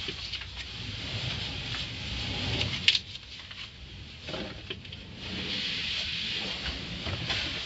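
Automatic car wash running, heard from inside the car: a hissing spray and rubbing wash equipment working over the body, easing off for a couple of seconds in the middle, with a single sharp knock about three seconds in.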